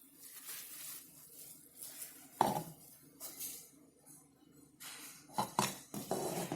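Light clinks and knocks of a mini electric cooker's lid and parts being handled, with a sharper knock about two and a half seconds in and a cluster of clinks near the end.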